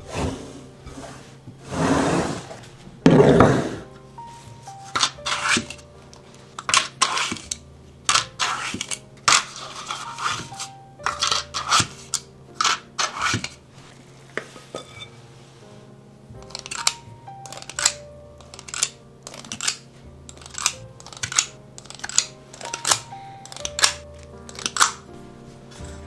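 Silicone spatula scraping thick muffin batter around a glass mixing bowl, two long scrapes about two and three seconds in, then many short irregular taps and scrapes as batter is scooped out and dropped into paper muffin liners. Soft background music plays underneath.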